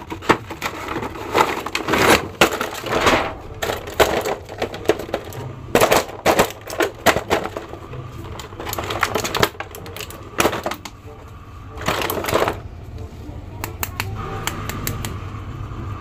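Plastic toy packaging crinkling and clicking in irregular bursts as a boxed set of action figures and its clear plastic tray are handled and the figures pulled out.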